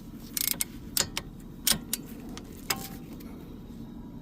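Hand tools clinking on metal: a socket wrench being fitted to a 14 mm bracket bolt under a car, making about half a dozen irregular sharp clicks, the last with a short metallic ring.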